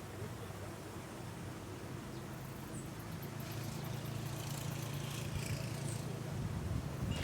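A low, steady engine hum, growing a little louder over the second half.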